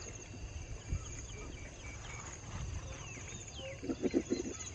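Insects trilling steadily in tall grass, with scattered short falling chirps. A brief burst of low pulsed sounds about four seconds in is the loudest moment.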